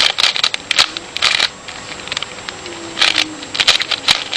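Layers of a plastic 3x3 Rubik's cube being turned by hand, short clicking, rasping turns in several quick bursts.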